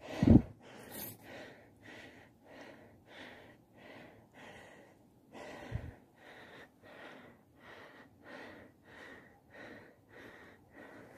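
A hiker's heavy breathing on an uphill walk: quick, even breaths about two a second. There is a loud low thump right at the start and a softer one about six seconds in.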